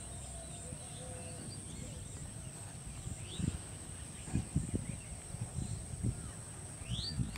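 Steady high-pitched insect drone with a few short rising bird chirps, one about three seconds in and one near the end, and soft low knocks and rustles in the second half.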